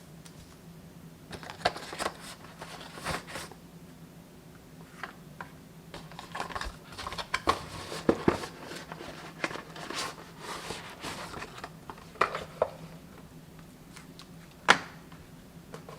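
Packaging being handled during an unboxing: irregular rustling and crinkling with scattered clicks and taps, and one sharp click near the end, over a faint steady hum.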